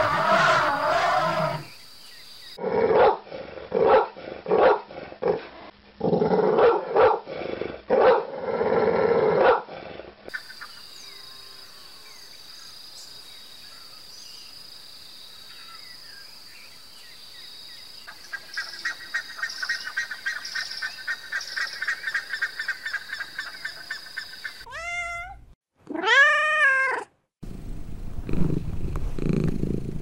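A run of different animal calls. It opens with an African elephant trumpeting and a stretch of loud, harsh calls, then a quieter patch with fast rhythmic chattering from a baboon. Near the end a domestic cat meows, rising then falling in pitch, and then purrs.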